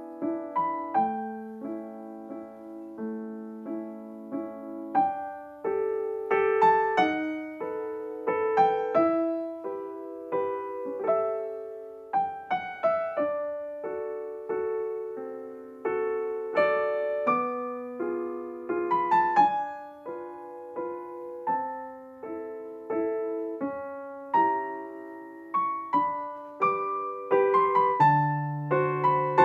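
Background piano music: a melody of single struck notes over chords, each note ringing and fading.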